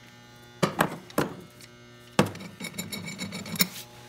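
Metal tube and threaded rod knocking and clinking against a metal tool cart as the T-handle tool is put together: three sharp knocks in the first half, then a rattling clatter near the end. A steady electrical hum runs underneath.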